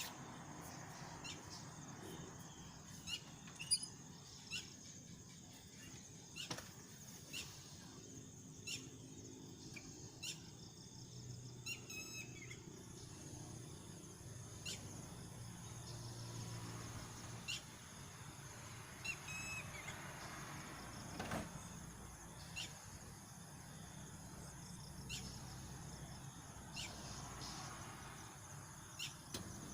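Lightning detector's speaker giving short, sharp clicks and crackles at irregular intervals, each a pick-up of an electrical discharge from a thunderstorm, over a faint steady hiss.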